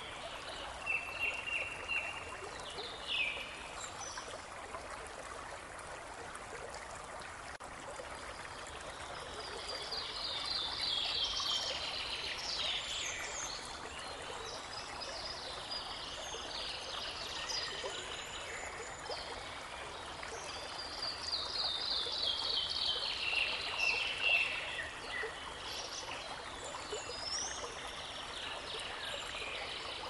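Small brook babbling steadily, with songbirds singing over it. Two long songs of rapid notes run downward in pitch, about ten and twenty-one seconds in.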